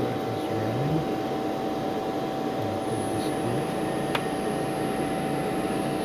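Magnetek HPV 900 AC elevator drive under test, running steadily with its cooling fan whirring and a constant hum; a high-pitched whine joins about three seconds in, and there is a single click about a second later.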